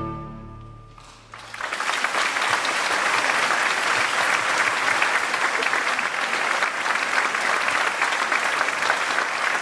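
The last chord of an orchestra and choir fades away in the first second, then a concert audience breaks into steady applause that keeps going.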